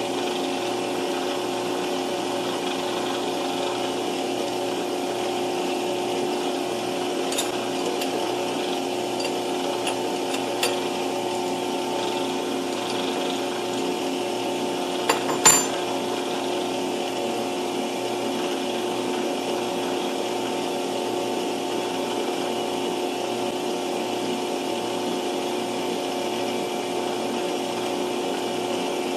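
Metal lathe running steadily at 620 rpm, its motor and drive giving a constant hum of even pitch while a bronze bar is center drilled. A short sharp click about halfway through.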